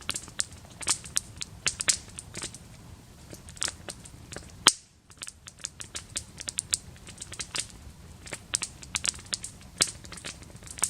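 Wood campfire crackling, with irregular sharp snaps and one loud pop about halfway through.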